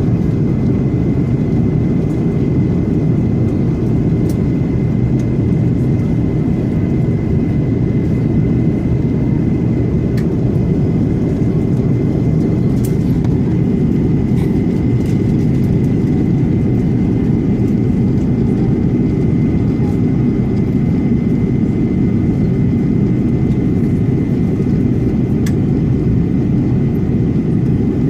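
Steady cabin noise inside an Airbus A330-300 airliner: an even, loud low rumble of the engines and airflow, with a faint steady high whine above it.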